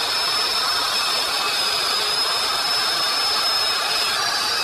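Y-IKING wall chaser (wall grooving machine) running and cutting a groove into a wall: a steady high whine over an even grinding noise.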